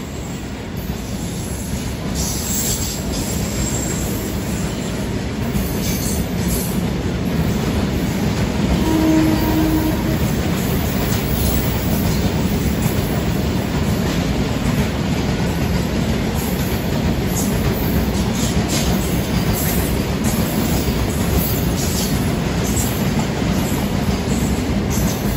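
Covered box wagons of a long goods train rolling past: a steady low rumble and rattle of wheels and running gear on the rails, with scattered faint clicks. It grows louder over the first several seconds, then holds steady.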